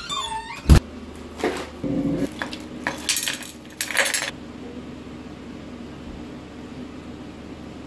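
Dishes and cutlery clattering: a run of clinks and knocks, some briefly ringing, over the first four seconds or so, then a steady low hum.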